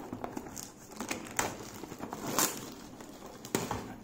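Plastic shrink wrap being peeled and pulled off a cardboard box, crinkling in irregular short crackles and rustles, the loudest a little past halfway.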